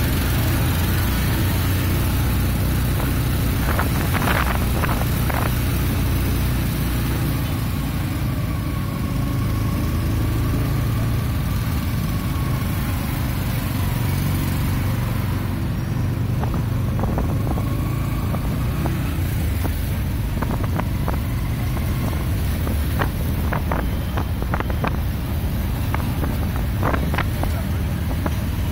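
Boda boda motorcycle taxi engine running steadily under a deep rumble of wind and road noise while riding through traffic, with a faint wavering whine in the middle and a scatter of short sharp sounds near the end.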